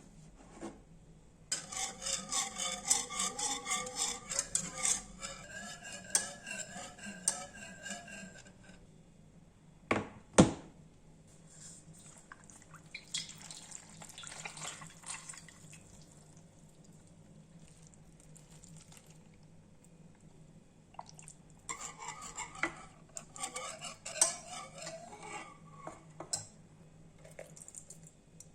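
A utensil stirring and scraping in a bowl, giving off wavering squeaky tones, in two spells. Between them come two sharp knocks about ten seconds in, then lighter clinks.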